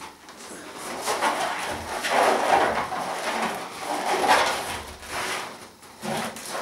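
Inflated latex balloons rubbing and squeaking against each other and against hands as a wired balloon cluster is handled and turned. The rubbing swells about a second in, is loudest twice in the middle, and dies away near the end.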